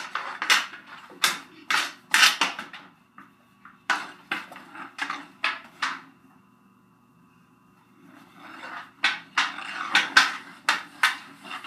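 Hockey sticks clacking rapidly against each other and against a concrete floor during floor hockey play, a quick run of hard knocks that stops for a couple of seconds past the middle and then starts up again.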